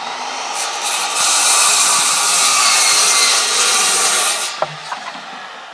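A 10-inch Bigfoot Skilsaw circular saw crosscutting a 3½-by-16-inch wooden I-joist, with the blade loud and steady through the cut. After about four and a half seconds the blade clears the wood and the saw winds down, with a short knock.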